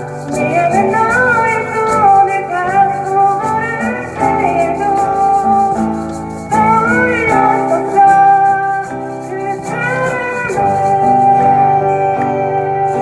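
Live band playing a song: a sustained melodic lead line that bends in pitch, over held chords and a steady bass.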